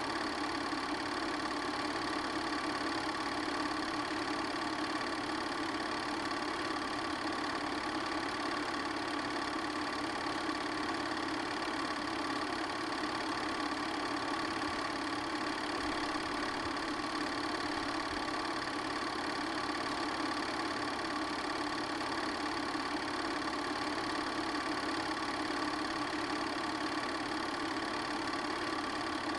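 8mm film projector running: a steady, unchanging mechanical whirr.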